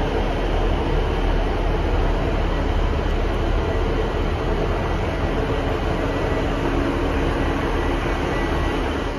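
Diesel multiple unit (British Rail Class 150) standing at the platform with its underfloor diesel engines running steadily, a constant low rumble and hum.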